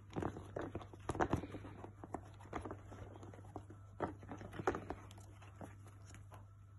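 Leather saddle flap and girth straps being lifted and handled: irregular soft knocks, creaks and rustles, fewer near the end, over a steady low hum.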